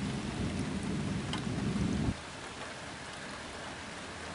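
Heavy rain falling steadily under a low rumble of thunder. The rumble stops abruptly about two seconds in, leaving the rain.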